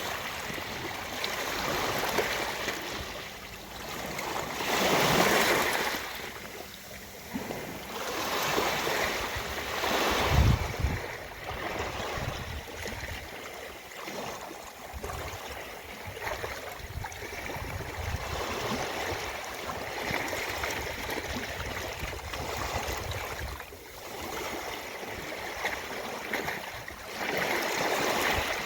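Ocean waves washing onto a beach, swelling and ebbing every few seconds, with the biggest breaks about five and ten seconds in and again near the end; the one at ten seconds lands with a low thud.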